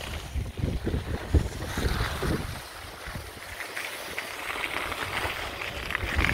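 Wind buffeting the microphone while skiing downhill, with skis hissing and scraping over packed snow. The gusts are strongest in the first half, and the scraping hiss grows louder toward the end.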